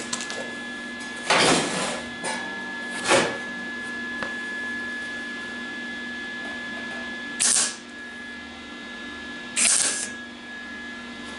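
MIG welder striking short arcs on thin sheet-steel body panel, four bursts of about half a second each, with a steady hum underneath. The welder is turned down low because the thin metal burns through easily.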